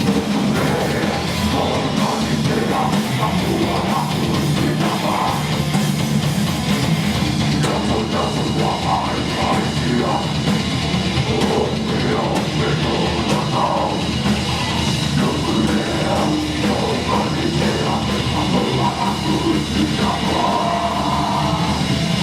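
Heavy metal music: distorted guitars over a pounding drum kit, loud and unbroken.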